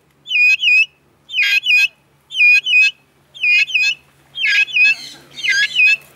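Vulturine guineafowl calling: a loud series of short high notes, each with a quick upward hook in pitch, given in clusters of two or three about once a second.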